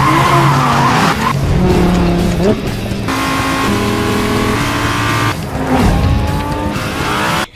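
Sports car engine sound effect, revving up and down and holding steady in places, mixed with background music.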